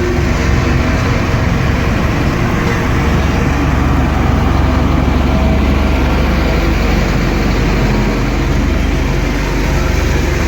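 Heavy machine's diesel engine running steadily with a deep, continuous rumble.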